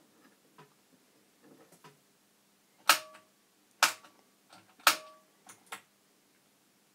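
Front-panel push-button switches of an NAD 3020 amplifier being pressed: three sharp clicks about a second apart, each followed by a brief metallic ring, then a couple of fainter clicks.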